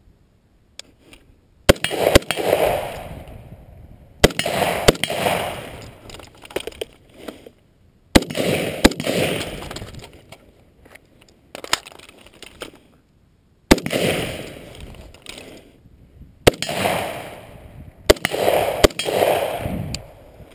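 XCR rifle firing about a dozen shots, mostly in pairs about half a second apart with pauses of a few seconds between pairs, each shot followed by a long rolling echo.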